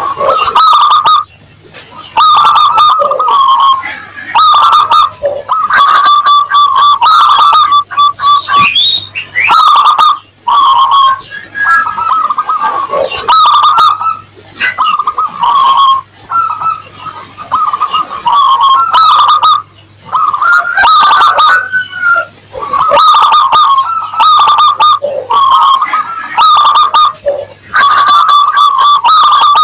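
Zebra dove (perkutut) cooing in loud repeated phrases of a second or two each, with short breaks between them, over a faint steady hum.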